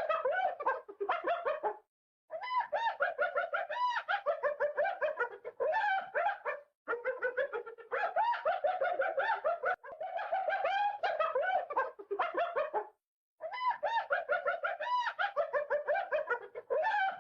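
Hyena calling in fast cackling runs of short rising-and-falling notes. The runs come in bouts of a few seconds, broken by brief pauses.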